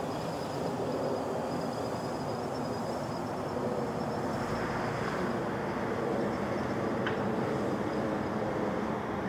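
Quadcopter's motors and propellers humming steadily in flight.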